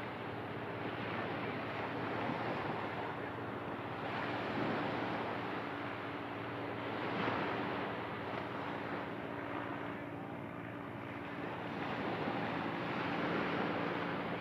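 Ocean surf washing onto a beach, a steady rush that swells and falls back every few seconds, with a faint steady low hum beneath it.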